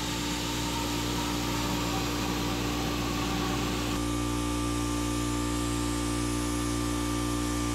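Plasma cutter cutting 3/8-inch-wall steel square tubing: a loud, steady hiss over a buzzing hum, the hiss changing in tone about four seconds in.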